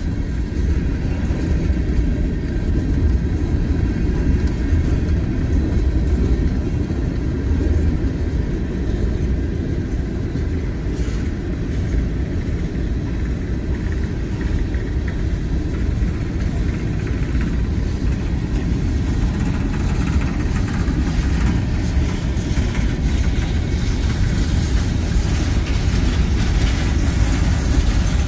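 Open-top hopper cars of a freight train rolling past at steady speed: a continuous low rumble of steel wheels on the rails.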